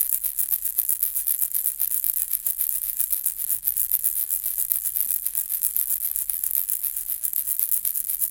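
Plastic baby rattle shaken continuously, its beads clattering in a fast, dense, bright rattle with no pause.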